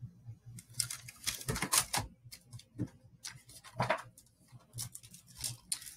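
A run of irregular sharp clicks and taps, a dozen or so over about five seconds, from things being handled at a desk.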